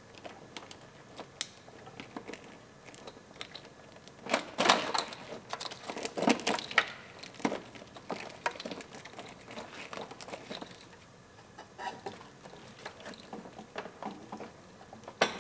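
A wiring harness in corrugated plastic loom being fed by hand through the firewall opening: irregular rustling, scraping and clicking of the plastic loom against the firewall, busiest about four to seven seconds in.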